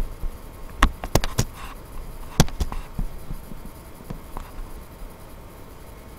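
Several sharp clicks of a computer mouse in the first three seconds, the loudest about two and a half seconds in, and a fainter one a little past four seconds, over a low steady hiss.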